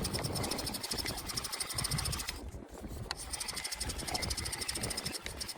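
Fishing reel being cranked: a rapid, even ticking in two runs with a short pause between, over low wind rumble on the microphone.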